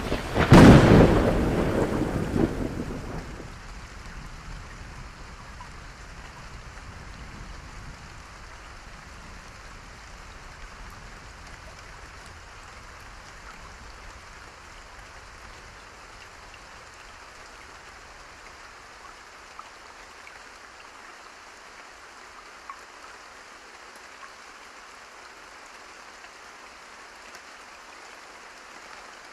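A loud thunderclap about half a second in, rumbling away over the next three seconds, then steady rain.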